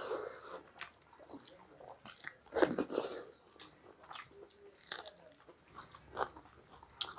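Two people eating rice, greens and red chillies by hand: chewing and crunching in irregular bites, with one loud crunchy bite a little under halfway through.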